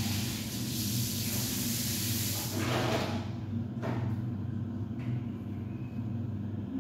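Minced chicken sizzling in a frying pan over a steady low hum. The sizzle dies away about halfway through, and a single click follows about a second later.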